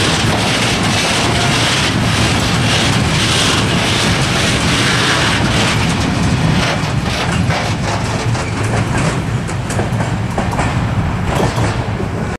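Freight train of open-top wagons rolling past: a steady rumble of wheels on rail. About six seconds in, the last wagons go by and the sound thins into separate sharp wheel clicks as the train moves away.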